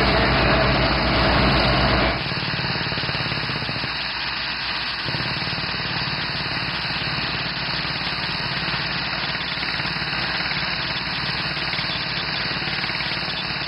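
Beretta T46 drilling rig running steadily, with a dense, even low pulsing; about two seconds in it drops in level and the low pulse thins out, then carries on evenly at the lower level.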